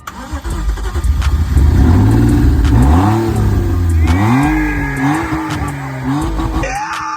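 BMW E46's swapped-in M54 inline-six engine revving. Its pitch climbs and drops back several times, then settles to a steady run near the end.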